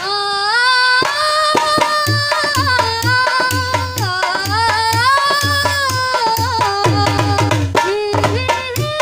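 A woman singing a Hindi film song in long, ornamented held notes over a tabla and drum backing beat.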